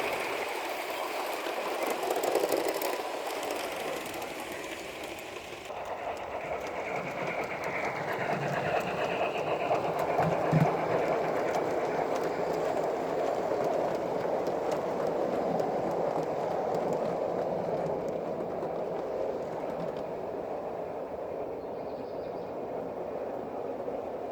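Gauge 1 model train running on outdoor garden track: a steady sound of its electric motor and wheels rolling along the rails.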